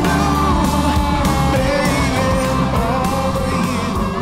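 Background rock music with a singer over a steady beat.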